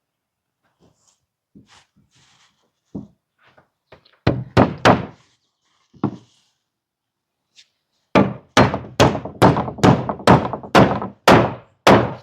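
Hammer driving nails through wooden battens into board siding: a few blows, then a steady run of about a dozen blows at roughly three a second.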